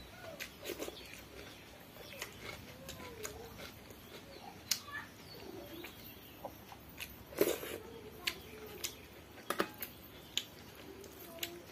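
Eating by hand from steel bowls: fingers squish and mix watery fermented rice and dip into a thin curry, with scattered sharp clicks and wet mouth sounds. The loudest click comes a little past halfway.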